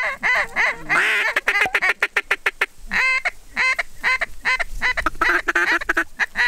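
Hand-held duck call blown in a series of quacks, with a quick run of short, rapid notes between about one and three seconds in, then more quacks.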